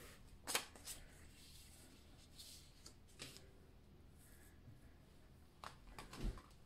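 Faint, scattered rustles and light taps of paper prop banknotes being handled and laid flat on a tabletop, with a slightly louder rustle near the end.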